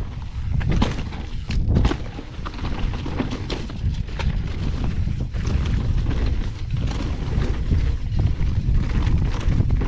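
Nukeproof downhill mountain bike rolling fast over loose dirt and stones: a steady rumble of tyres and wind on the microphone, with frequent knocks and rattles as the bike and its suspension hit bumps.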